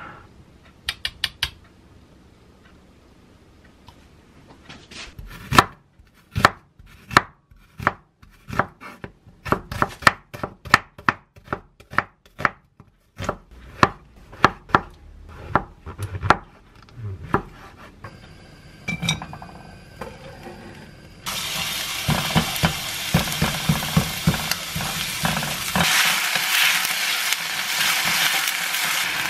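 A few light clicks, then a knife chopping on a wooden cutting board, many sharp strokes in uneven runs, slicing king oyster mushroom. Later a steady sizzle as sliced onion fries in a pan, stirred with a wooden spatula.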